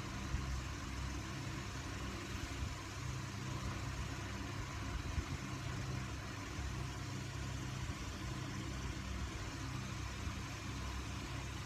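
Steady low mechanical hum with a constant hiss over it.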